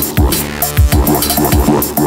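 Electronic music with a heavy kick-drum beat.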